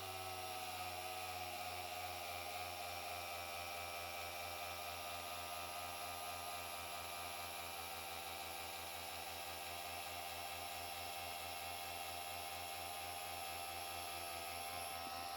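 A small electric air pump running steadily as it inflates a car tire through a newly fitted valve stem, with a fast, even pulsing from its compressor. Its pitch sags a little in the first second, then holds steady.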